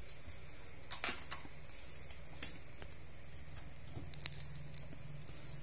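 About four light clicks and taps as hands handle the purple strip along the aluminium edge of a black HPL-covered plywood hardcase panel, two of them close together past the middle, over a steady low hum.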